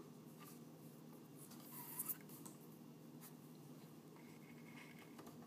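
Faint rustling and scraping of paracord being handled and pulled through the weave, with a slightly louder rustle about two seconds in, over a low steady hum.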